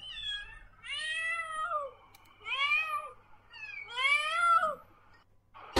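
A cat meowing four times: a short meow, then three longer ones that rise and fall in pitch.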